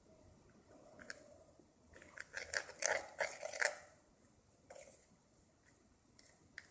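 Dish soap slime squished and worked by hand, giving wet, sticky crackling and clicking: a few single clicks, then a dense run of crackles in the middle.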